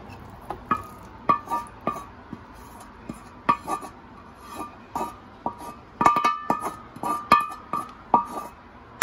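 Wooden spatula knocking and scraping against a metal frying pan held over a stainless steel pot, as chicken and potatoes are pushed out of the pan: about twenty irregular clinks, each with a short metallic ring, busiest about six to seven and a half seconds in.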